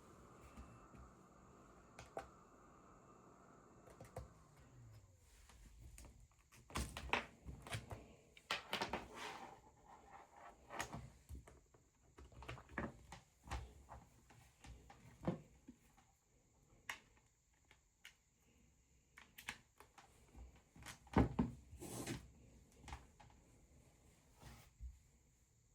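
A small machine's steady hum falls in pitch and stops about four seconds in, like a CPAP blower being switched off. It is followed by a run of irregular knocks, clicks and clunks of hard plastic objects being handled and set down, loudest about seven, nine and twenty-one seconds in.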